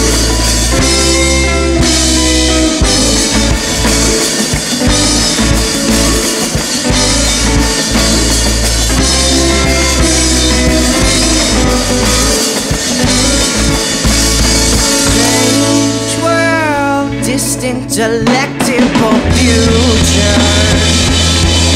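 Psychedelic indie rock song with drum kit, in a passage with no words. About fifteen seconds in, a run of bending, sliding notes leads into a short break of sharp drum hits, and then the full band comes back in.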